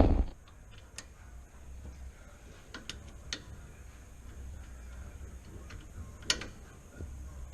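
A heavy knock right at the start, then a few scattered sharp clicks and taps of metal parts and tools being handled while fitting a new brake line.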